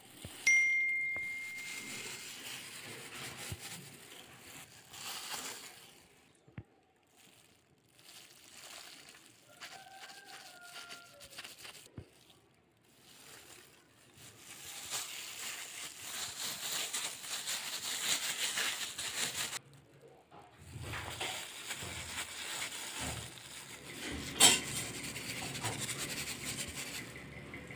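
Intermittent rustling and scraping as dough is handled, cut with a knife and dusted with flour by plastic-gloved hands on a stone counter, with one sharp knock near the end.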